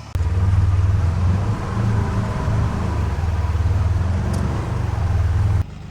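Polaris Ranger XP 1000 side-by-side engine running under way with a steady low rumble, which cuts off suddenly near the end.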